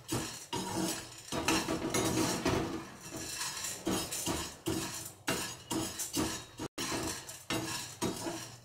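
A spoon stirring dry nylon sabudana (large sago pearls) in a kadhai, scraping and clinking against the pan in repeated strokes about two a second as the pearls shift about.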